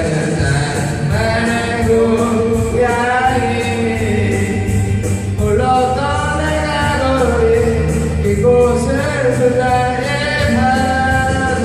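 A vocalist singing a cover of a Korean rock song over its instrumental backing, holding long notes that shift in pitch.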